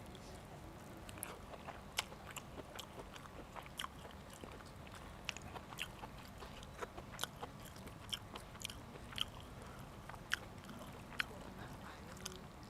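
A person eating close to the microphone: chewing, with short sharp mouth clicks and crunches at irregular intervals, roughly one or two a second.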